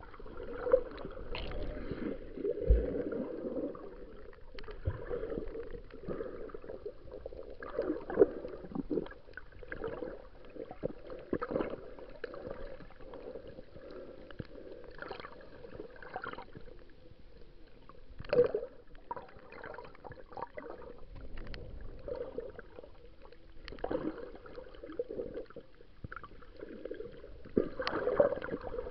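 Muffled underwater sound through an action camera's waterproof housing: water swishing and gurgling, with irregular dull knocks and bumps as the camera moves about.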